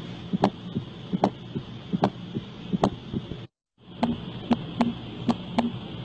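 Recorded heart sounds: an atrial gallop, with an extra S4 sound just before each S1, beating at about 75 a minute. It cuts off at about three and a half seconds, and after a short silence a second recording begins, a split S2 heard as closely paired clicks. Steady hiss runs under both.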